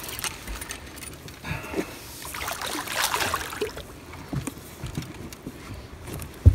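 Hooked channel catfish thrashing at the surface beside a boat, splashing the water on and off, loudest about three seconds in. There is a single sharp knock near the end.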